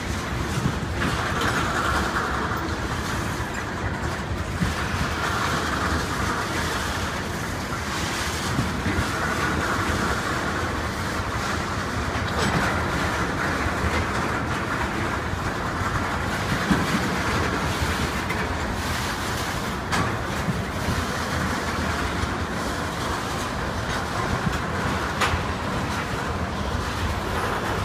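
Freight train of crude-oil tank cars rolling past: a steady rumble of steel wheels on rail that swells every few seconds, with sharp clicks as wheels cross rail joints.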